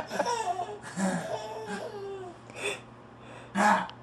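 Laughter and a startled baby's whimpering, in short bending vocal sounds, with a brief louder outburst near the end: the baby has just been scared by someone jumping out at her.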